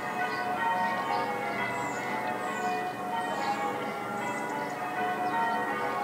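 Church bells ringing, several bell tones overlapping and sustaining in one continuous peal.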